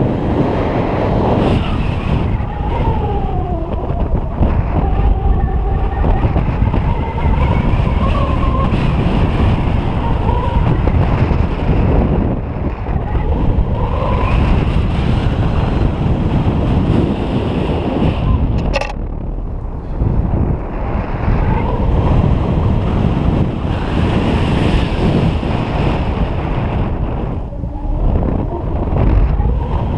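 Airflow of paraglider flight buffeting the harness camera's microphone: a loud, gusting rush of wind noise, with a faint wavering whistle in the first half and a single sharp click about 19 seconds in.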